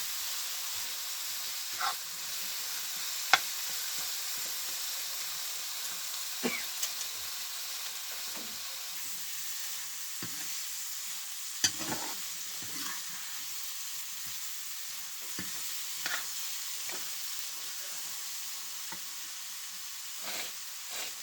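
Food sizzling steadily in a hot pan, with a few sharp clicks of stirring scattered through it.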